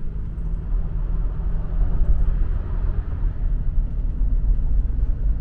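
Road and engine noise inside the cabin of a 5th-generation Toyota 4Runner driving onto the interstate: a steady low rumble that swells slightly about two seconds in.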